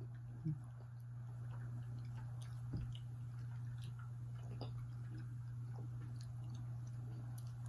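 Quiet chewing and small sticky mouth clicks from eating soft mochi ice cream, over a steady low hum, with a short knock about half a second in and another near three seconds in.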